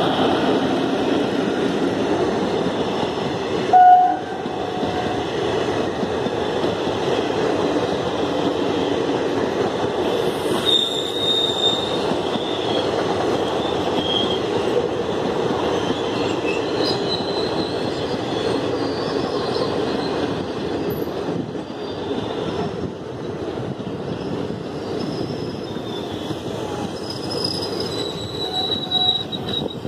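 Passenger coaches of an Indian Railways train behind a WAP-4 electric locomotive passing close at speed: a steady rumbling rush of wheels on the rails with clatter at the rail joints. High wheel squeals come and go, and a short loud toot sounds about four seconds in.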